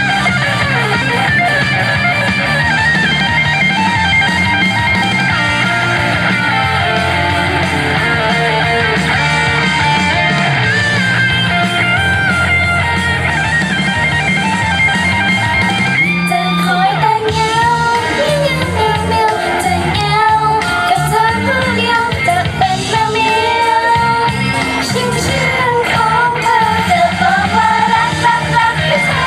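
Loud pop-rock song with electric guitar, drums and singing; the sung melody stands out more clearly from about halfway through.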